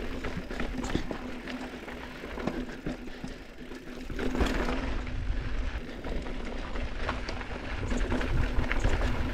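Mountain bike riding fast down a dirt singletrack: wind rumbling on the microphone, tyres rolling over dirt and rocks, and many small clicks and rattles from the bike over bumps, louder from about four seconds in.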